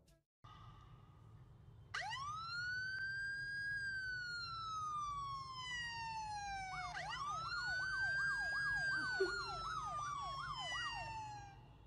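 Electronic police siren sound: a long wail that rises and slowly falls, then a second wail that breaks into quick yelps, about three a second, fading out near the end.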